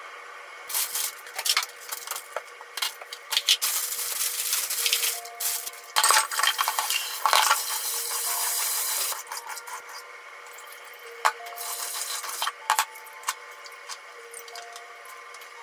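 Bean sprouts being handled in a plastic colander at a kitchen sink: rustling, light knocks and clatter, with a few seconds of steady rushing noise in the middle, such as rinsing water.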